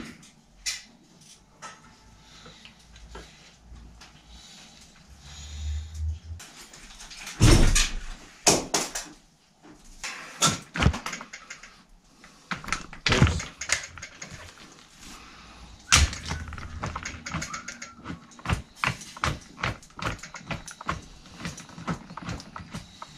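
Irregular clicks and metallic knocks of hand work on a small bicycle wheel's freewheel hub, with several sharper knocks spread through.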